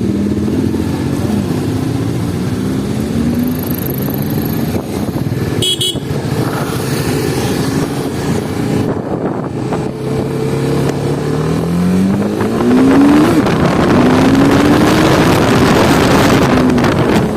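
Motorcycle engine accelerating through the gears, its pitch rising and then dropping at each gear change, with wind noise building as speed picks up near the end.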